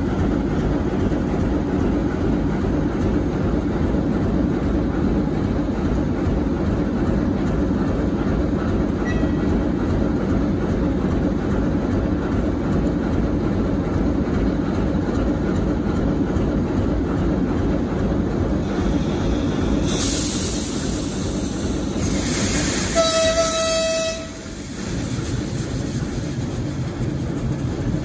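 TEM18DM shunting diesel locomotive running steadily as it moves along the track. About twenty seconds in a hiss starts, then near the end the locomotive gives a short single-note horn blast, after which the engine settles to a lower hum.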